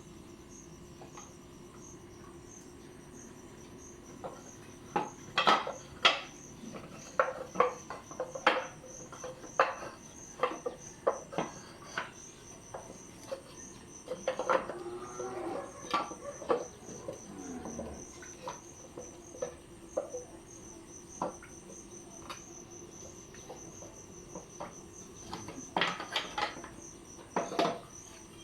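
Crickets chirping steadily in an even, rapid pulse. From about five seconds in, irregular sharp clicks and taps come through, with a brief sound that falls in pitch around the middle.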